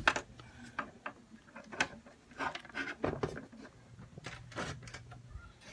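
Handling noise: irregular clicks, knocks and rubbing as objects are moved about and the phone is held close.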